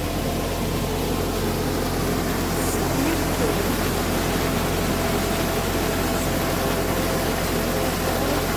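Rushing water: a steady, even rush that holds the same level throughout.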